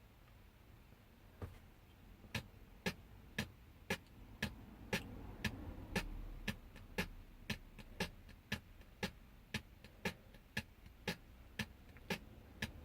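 Faint, evenly spaced ticks, about two a second, starting a second or so in, while no music comes through the car stereo.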